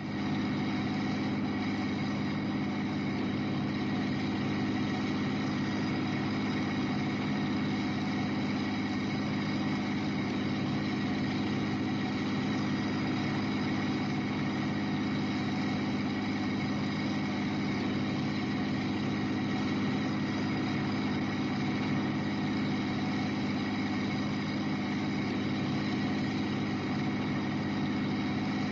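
Motor vehicle driving at a constant speed: a steady engine hum that holds one pitch, with no revving or gear changes.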